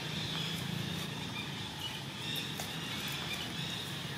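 Outdoor ambience: a steady low hum with faint, scattered insect and bird chirps.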